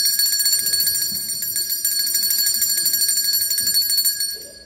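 Electric bell ringing continuously, a shrill high-pitched ring that stops near the end.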